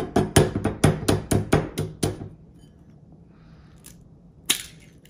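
A fast, even run of sharp knocks, about four a second, stopping a little over two seconds in, followed by a single sharp click near the end.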